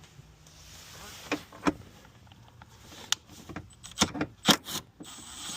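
Metal hand tools clinking and knocking under the hood: a few separate sharp clinks about a second and a half in, around three seconds in and a pair near four and a half seconds, with a steady hiss starting near the end.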